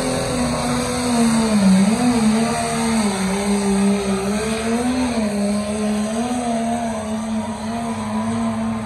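Pulling tractor's engine running hard under load as it drags a weight-transfer sled down the track, its pitch wavering up and down.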